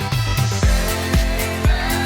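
Electronic background music with a steady kick-drum beat, about two beats a second, under held synth chords and a rising sweep.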